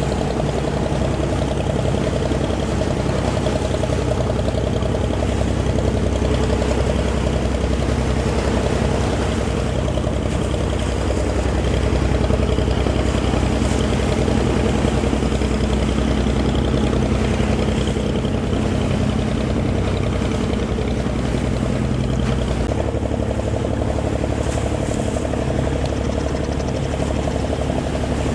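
Wooden fishing boat's engine running steadily.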